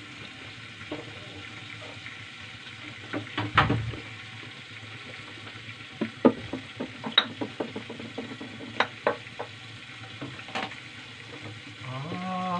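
Pork frying in hot oil, a steady sizzle broken by scattered sharp pops and crackles of spattering fat.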